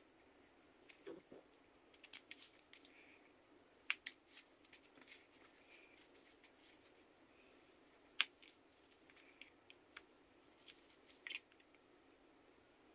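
Carving knife slicing chips from a small wooden workpiece: irregular crisp snicks of the blade through the wood, with sharper cuts about four, eight and eleven seconds in.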